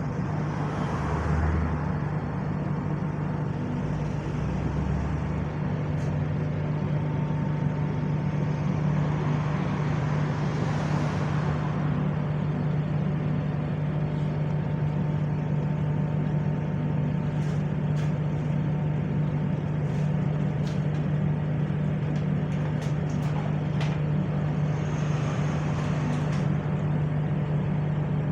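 Onboard sound of a single-deck bus (SLN 36552) running at a steady pace: a steady engine and driveline drone with a faint gearbox whine. Road noise swells and fades three times, and a few light rattles and clicks come in the second half.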